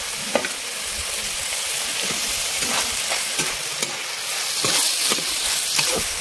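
Fresh spinach leaves sizzling in hot oil and spice paste in a kadai, with a steady hiss, while a spatula stirs them, scraping and knocking against the pan in a dozen or so irregular strokes.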